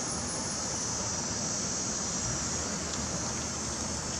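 Steady outdoor background noise: a low rumble of road traffic under a steady high hiss, with no distinct events.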